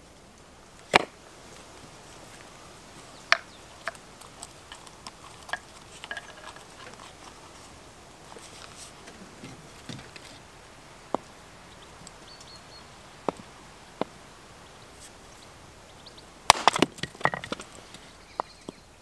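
Hatchet striking firewood set on a stone block: scattered sharp wooden knocks, then a quick run of several blows near the end.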